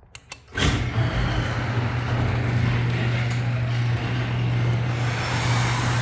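A couple of quick clicks, then an electric garage door opener starts about half a second in and runs steadily with a low hum, moving the door.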